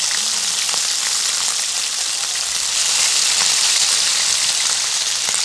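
Slices of homemade pork luncheon meat sizzling in hot oil in a frying pan over high heat: a steady hiss with scattered small crackles.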